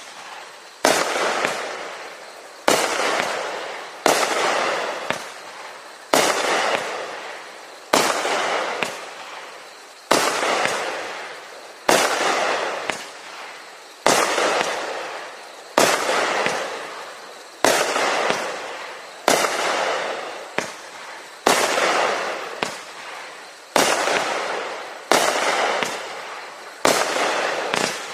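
A 19-shot, 200-gram consumer fireworks cake with 1-inch tubes firing shot after shot, about one every two seconds. Each shot is a sudden bang that fades out over a second or so.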